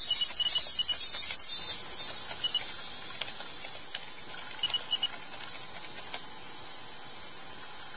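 Electronic beeping sound effect: a quick run of short, evenly spaced high beeps at the start, then a couple of brief beep pairs later, with faint clicks in between.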